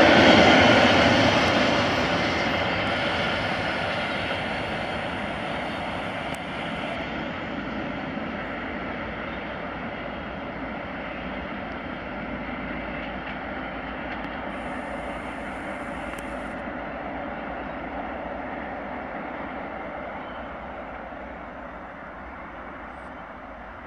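Long container freight train rolling away along the track, its wagon noise fading steadily as it recedes.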